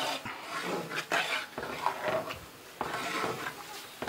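Large metal spatula stirring thick, wet masala in a big metal cooking pot. It scrapes through the mix and knocks against the pot in irregular strokes about every half second.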